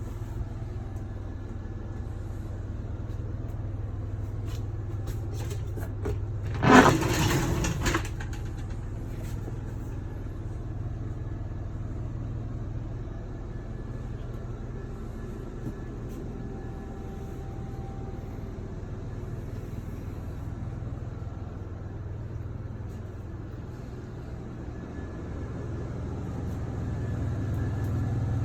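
Steady low hum of a vehicle engine running. A loud, sudden burst about seven seconds in lasts about a second.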